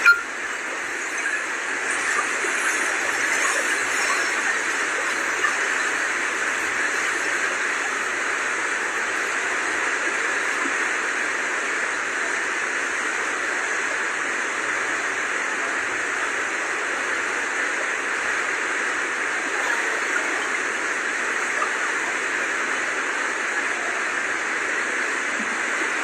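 Swollen Kosi River floodwater rushing past in a steady, unbroken rush of noise.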